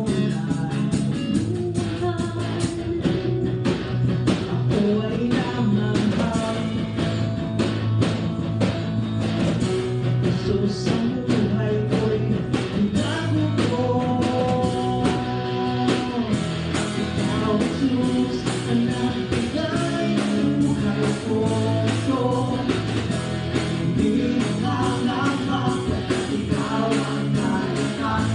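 A band playing a rock-style song, with a steady drum beat under bass and guitar.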